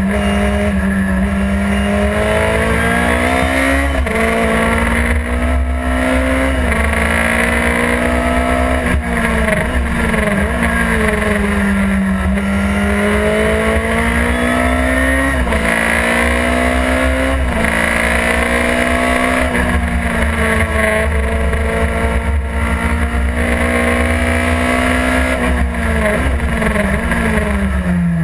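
Chevron B16 sports-racing car's engine at full racing speed, heard from inside the cockpit. Its pitch climbs under acceleration and drops sharply at each gear change, again and again, then steps down through a run of downshifts near the end.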